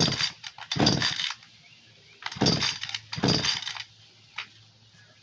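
Pull-starting a new Echo two-stroke chainsaw with the choke on: four quick rasping pulls of the recoil starter cord, in two pairs, cranking the engine without it catching.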